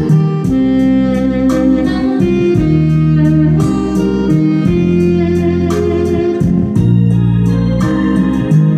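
Instrumental backing music: organ-like electronic keyboard chords held over a bass line, changing every second or so, playing the intro before the vocal comes in.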